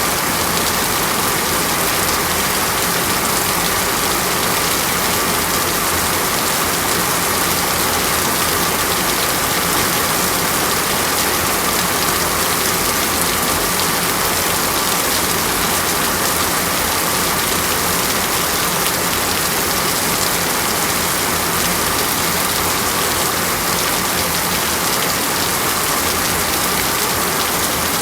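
Water rushing or pouring in a steady, even hiss with no breaks or changes.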